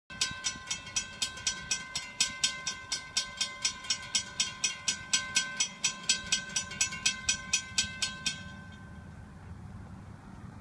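Railroad crossing bell ringing rapidly and evenly, about four strikes a second, as the crossing gates come down to warn of an approaching train. The bell stops about eight seconds in, once the gates are down, leaving only a low steady background.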